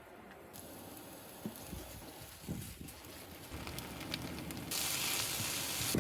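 Food sizzling in a pan on a camping stove, with a steady hiss that gets much louder for the last second or so, and a few soft knocks in the first half.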